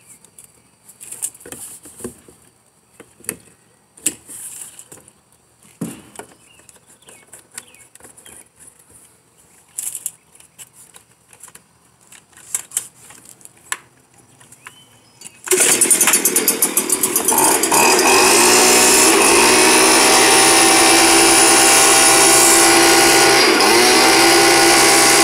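Scattered clicks and taps of parts and a fuel cap being handled, then about 15 seconds in the Stihl BG 86 leaf blower's two-stroke engine starts, runs unevenly for a couple of seconds and settles into a steady run, with a brief dip in speed near the end.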